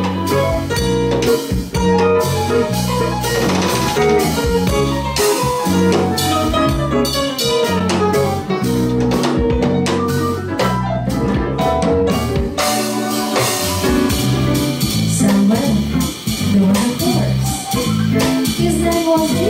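Live band playing with drum kit, electric bass and electric guitar in a steady groove.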